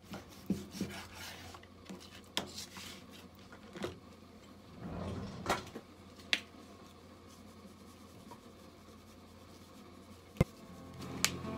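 Kitchen knife cutting raw meat on a plastic cutting board: scattered knocks of the blade against the board and rubbing scrapes, then a few sharp taps later on.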